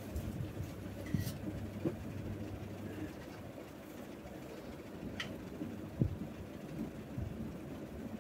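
Long metal spatula stirring mutton in masala in a large metal cooking pot: irregular scrapes and clicks of metal on metal, the loudest knock about six seconds in, over a steady low hum.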